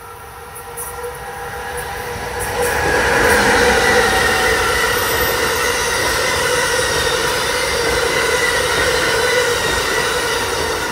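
Amtrak Northeast Regional train passing at speed, an ACS-64 electric locomotive followed by Amfleet coaches. The rush of steel wheels on rail builds over the first three seconds as the locomotive comes up, then holds loud and steady with a high whine over it as the coaches go by.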